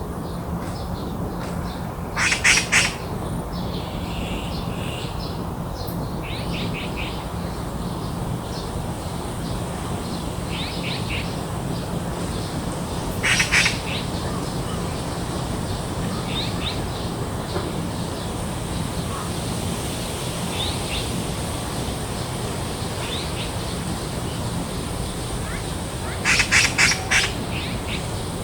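Garden birdsong ambience: a bird gives a burst of harsh, rapid chattering calls about two seconds in, a single short one midway, and a longer burst near the end. Under it are softer scattered chirps from smaller birds, a thin steady high-pitched insect trill and a low steady hum.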